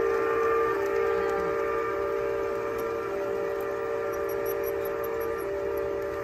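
Model train's sound system blowing a chime whistle: one long, steady chord of several notes held without a break.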